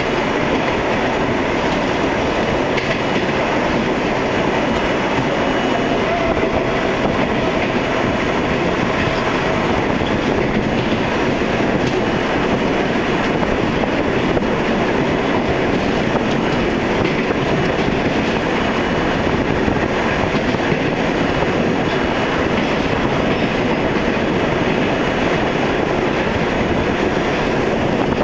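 R32 subway train running through an underground tunnel: a steady, loud rumble and clatter of wheels on the rails.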